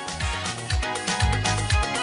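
Upbeat dance music with a heavy kick drum at about two beats a second, getting louder in the first second.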